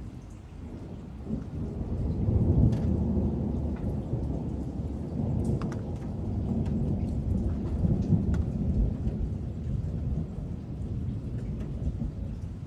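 Thunder rolling: a long low rumble that swells over the first two seconds, then keeps rolling, with another swell about eight seconds in.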